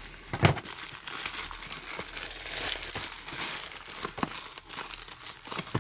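White plastic bubble mailer crinkling as it is handled and pulled open, with a few sharp crackles, one about half a second in and another just after four seconds.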